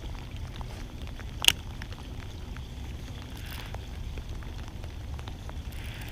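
Outdoor wind rumbling on the microphone with scattered faint crackles and ticks, and one sharp click about a second and a half in.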